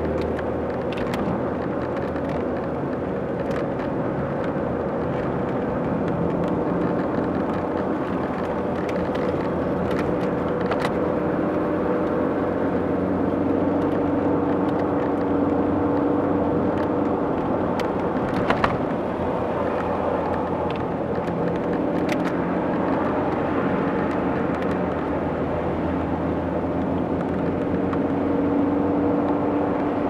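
Car driving on the road, heard from inside the cabin: a steady mix of engine hum and road noise with engine tones that drift slightly in pitch. A few faint ticks, and a brief click just past the middle.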